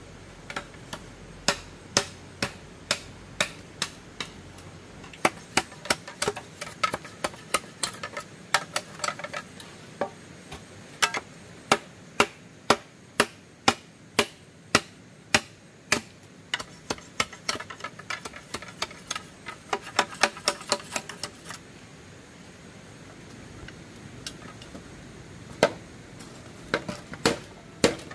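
Repeated sharp knocking strikes, about one or two a second, with lighter taps between. They stop for a few seconds and start again near the end.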